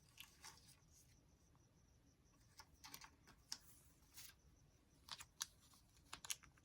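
Near silence with faint, scattered light clicks and taps of paper and craft materials being handled, a few more of them near the end.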